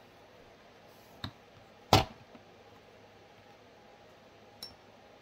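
Three short, sharp clinks of hard objects being handled and set down on a tabletop, the second, about two seconds in, much the loudest.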